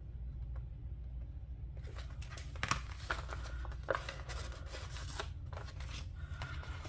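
Paper sticker sheets rustling and crinkling as they are handled, with small taps and crackles, starting about two seconds in over a low steady hum.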